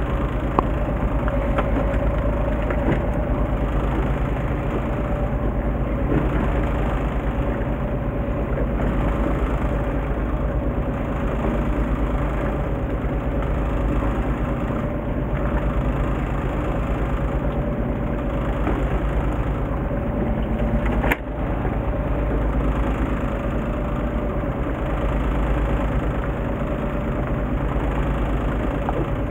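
Fishing boat's engine idling steadily: a continuous low rumble with a steady hum, broken once late on by a brief click.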